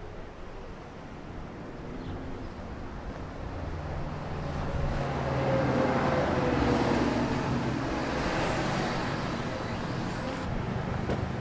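Street traffic with a motor vehicle driving past. Its engine noise builds to a peak about six seconds in, and its pitch drops slightly as it goes by.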